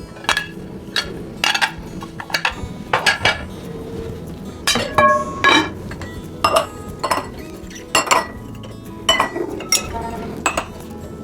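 Dishes and cutlery clinking as they are handled and set down, with some fifteen irregular strikes, several ringing briefly.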